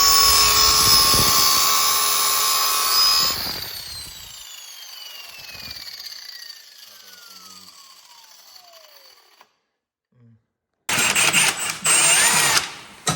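A power tool's motor running steadily at speed, then switched off and winding down, its whine falling in pitch for several seconds as it slows. After a short silence a different loud, rattling burst of tool noise starts.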